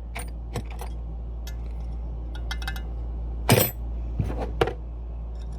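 Light metallic clinks and clicks of hand tools being tried on the chime bar's mounting nut: a handful of scattered sharp clicks, the loudest about three and a half seconds in, over a steady low hum.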